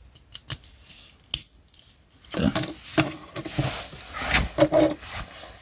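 Plastic Transformers action figure being worked by hand: sharp clicks of its joints and parts, then about two seconds in a longer stretch of scraping and rubbing plastic with more clicks as pieces are forced into place.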